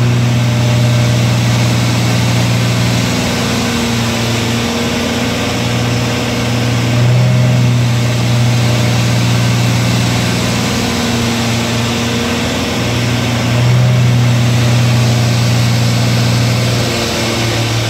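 Turbocharged 2JZ-GTE inline-six running loaded on a hub dyno, held at steady engine speeds that shift a few times: steady-state partial-throttle tuning, not full power pulls.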